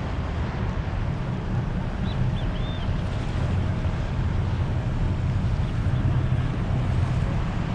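Wind buffeting an action camera's microphone over the wash of sea water around a kayak: a steady low rumble that doesn't let up.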